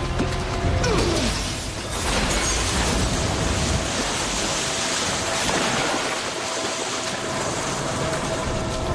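A glass water tank is smashed open about two seconds in, and water gushes out in a steady rushing wash. Dramatic score music plays underneath.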